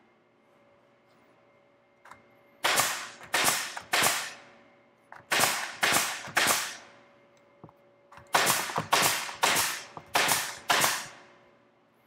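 Porter-Cable pneumatic brad nailer firing 5/8-inch brads to fix corner blocks onto a pine stretcher frame: three shots, a pause, three more, then a quicker run of about six, each a sharp snap with a short fading tail.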